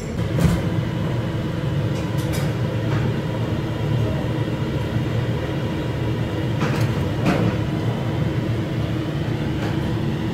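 Steady low mechanical hum and rumble of indoor machinery, with a few short clinks.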